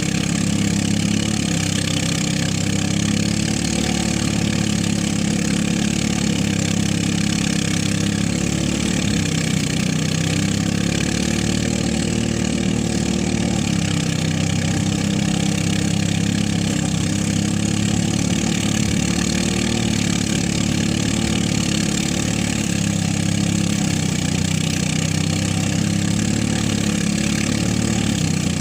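Engine-driven rice threshing machine running steadily. Its engine note sags briefly a few times, then recovers.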